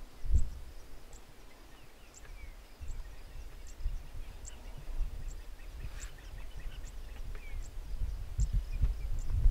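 Open-air ambience: a low rumbling buffet with swells about half a second in and near the end, over small bird chirps and a high, short call that repeats about every three-quarters of a second.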